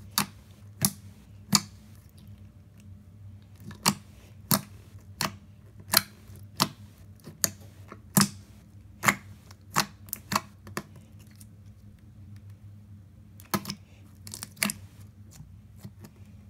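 Crystal clear slime in a plastic cup, pressed and poked with a finger, giving sharp popping clicks, one or two a second, then a short pause and a few more near the end.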